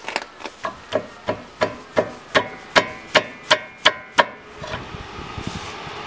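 About a dozen sharp metallic taps on a flathead screwdriver wedged in a rear brake caliper, about three a second and growing louder, each with a short ring, as the screwdriver is driven in to lever the brake pad out. The taps stop about four seconds in, and a steady rumble rises after them.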